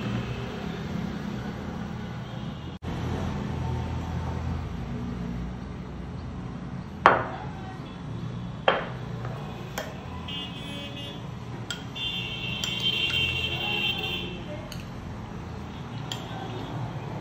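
A ceramic bowl knocks sharply twice against a kitchen counter or pot, over a steady low background hum, with a few lighter clicks afterwards. A high-pitched, horn-like tone sounds twice in the second half.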